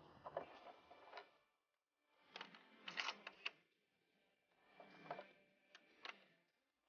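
Cartridges being pushed one at a time through the loading gate of a Marlin 1895 SBL lever-action rifle into its tubular magazine. Three short clusters of faint metallic clicks and scrapes, about a second apart.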